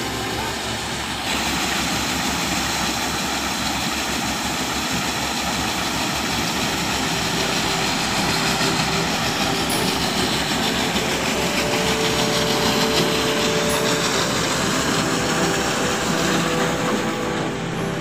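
New Holland 8080 combine harvester running while it unloads wheat from its raised unloading spout onto a pile: a steady machine din mixed with the hiss of pouring grain, setting in about a second in.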